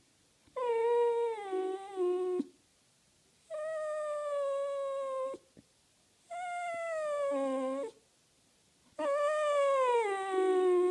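A Jack Russell terrier whines and moans in four long drawn-out calls, each about two seconds, mostly sliding down in pitch. It is the dog's vocal protest at being told no, keeping up its pleading.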